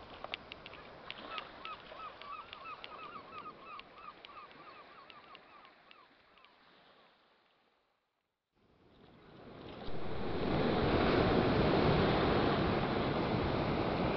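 Seagulls giving a quick run of short calls, about four a second, over a background hiss of sea ambience; the sound fades out to a brief silence. Then ocean surf swells in and runs loud and steady.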